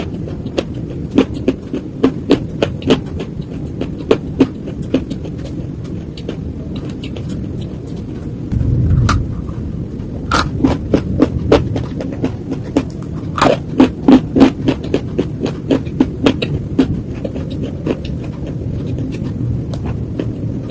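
Close-miked crunching and cracking of slate: many sharp, irregular crunches, densest in the second half, over a steady low rumble. A brief louder low thump comes a little before the middle.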